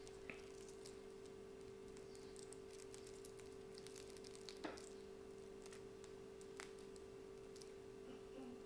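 Near silence: room tone with a faint steady hum and a few faint, isolated clicks.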